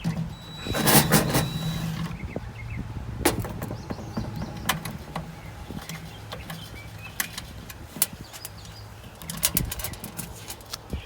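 Fastening screws being worked out of a Pitco fryer filter pump housing: a short rasping burst about a second in, then scattered sharp metallic clicks and clinks of tools on the pump, over a faint steady hum.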